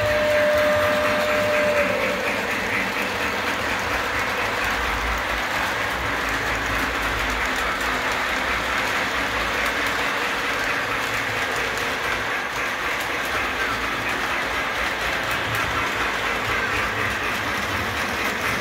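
Model steam locomotive and tender running on the layout's track: a steady rolling clatter of wheels on the rails that continues throughout. A single steady tone sounds for about the first two seconds.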